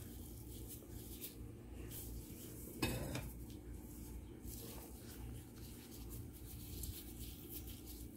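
Faint handling sounds of a tray and ground beef being spread by hand over lasagna noodles, with light clicks and one louder knock about three seconds in, over a steady low hum.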